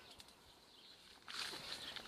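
Faint outdoor quiet, then a bit past halfway a short rustle with small crisp clicks as arugula stems are cut with a knife and the bunch is pulled free of the plants.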